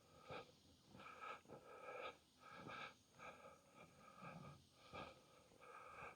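Faint rainforest ambience: a short call at a few steady pitches repeating roughly every half second, over soft crackling.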